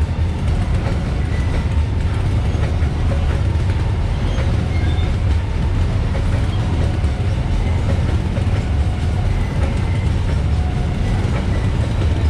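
Open-top coal wagons of a long freight train rolling past a level crossing: a steady low rumble with wheels clacking over the rail joints.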